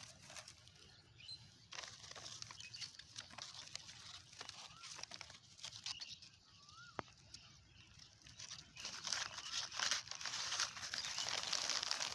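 Plastic litter crinkling and rustling as it is picked up and stuffed into a collection bag, the crackling getting busier and louder near the end. A few faint bird chirps come through.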